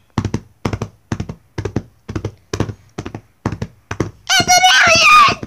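Horse hooves clip-clopping in a steady trot, a double clop about twice a second, then a loud, high, wavering cry about four seconds in.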